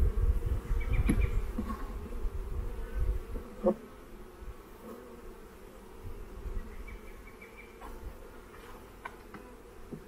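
Honey bees buzzing around an open hive box in a steady hum, with a few short clicks and knocks from a hive tool working the wooden frames.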